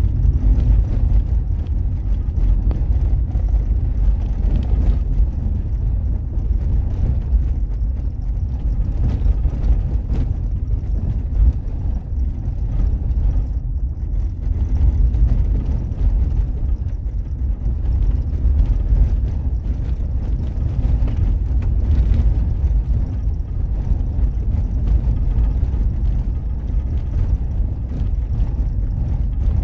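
Steady low rumble of a road vehicle on the move, engine and tyre noise with no sharp events.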